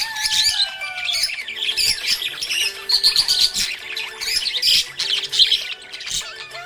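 Budgerigars chattering: a dense, continuous stream of quick overlapping chirps, warbles and squawks.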